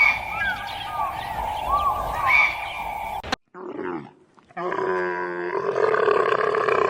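Birds chirping with short gliding calls over a steady drone, cut off abruptly about halfway through; after a brief pause, a large animal gives a long, deep, rough call.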